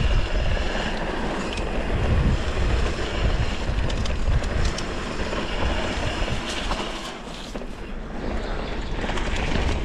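Mountain bike descending a downhill trail: wind rushing over the camera microphone and tyres rumbling over the ground, with scattered clicks and rattles from the bike and loose stones. The rumble eases for a moment about seven seconds in.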